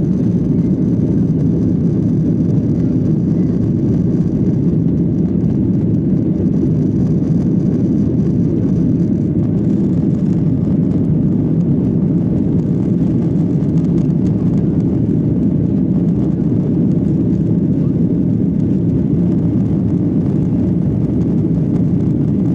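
Airliner cabin noise: the steady low rumble of jet engines and airflow, heard from inside the passenger cabin. A faint high whine fades out about nine seconds in.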